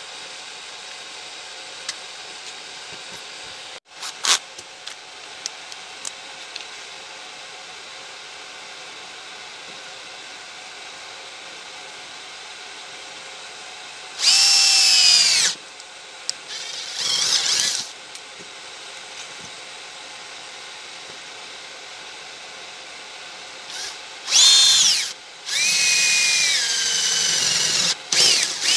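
Cordless drill boring into a thin metal plate in four short runs, starting about halfway through, the motor's whine falling away each time the trigger is released. Before that, only a steady hiss and a few light clicks.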